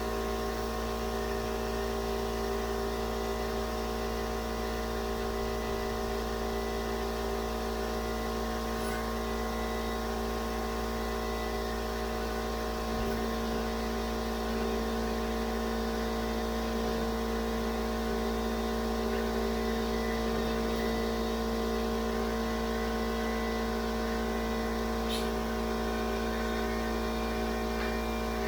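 Air compressor running steadily with a constant droning hum, stepping up slightly in level about halfway through.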